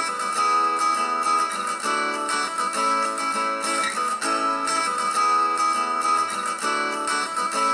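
Guitar music, plucked and strummed acoustic guitar, played from a phone through the NewRice charging stand's small 3-watt side-firing Bluetooth speakers. It sounds thin, with almost no bass.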